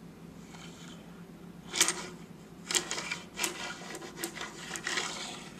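Coins scraping and clicking on a hardwood floor as they are slid around by hand. A run of taps and scrapes starts about two seconds in and ends shortly before the end.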